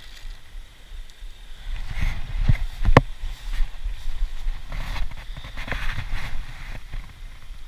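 Wind rumbling on the microphone, with rustling and handling noise as the hand-held camera moves, and a few sharp knocks or clicks about two to three seconds in.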